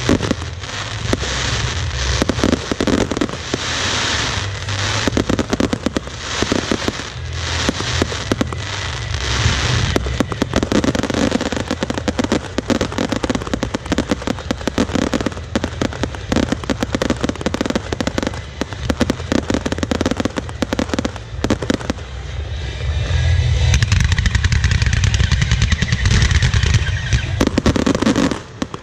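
Closing fireworks display: rapid shell bursts, bangs and crackling stars overlapping without pause. It grows louder and heavier about three quarters of the way through, then cuts off abruptly near the end.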